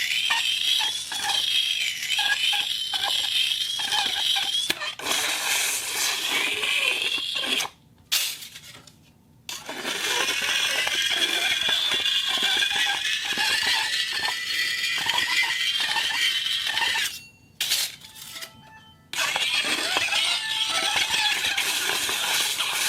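Iron plate on a turntable giving a continuous, wavering, high metallic squeal over rapid rattling ticks. It stops abruptly about 8 s in and again about 17 s in, starting again each time a second or two later.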